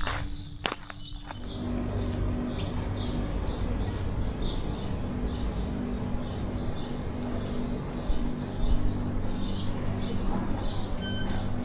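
Small birds chirping in quick, repeated short notes over a steady low background rumble and hum.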